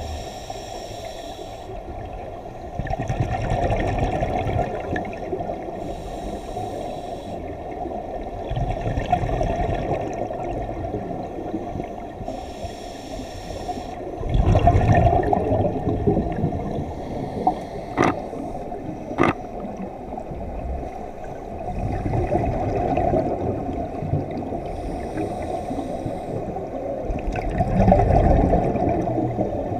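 Scuba regulator breathing heard underwater: a hissing inhale, then a louder bubbling rumble of exhaled air, repeating about every six seconds. Two sharp clicks come a little past the middle.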